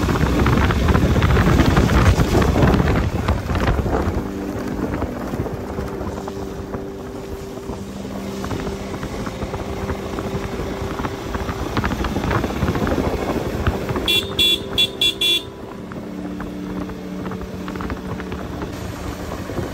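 Motorcycle engine running as it is ridden, its pitch stepping up and down with speed and gear changes, with wind buffeting the microphone loudly for the first few seconds. About fourteen seconds in, a high-pitched horn beeps about five times in quick succession.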